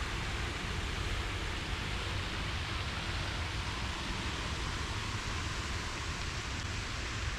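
Steady rush of a lake water fountain's spray splashing down, with a low wind rumble on the microphone.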